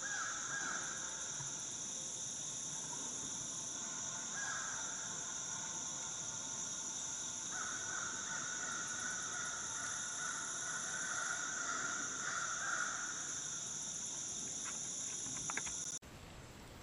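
Steady high-pitched insect chorus, with crows cawing a few times. A few clicks near the end, then the sound cuts off suddenly.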